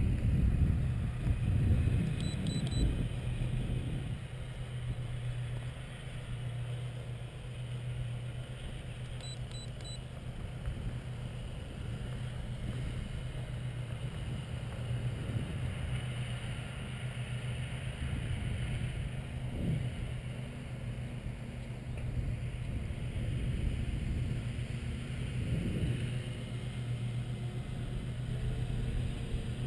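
Steady distant drone of a radio-control model Cessna T50 Bobcat's motors flying overhead, with wind buffeting the microphone now and then. Twice there is a short run of three quick high beeps.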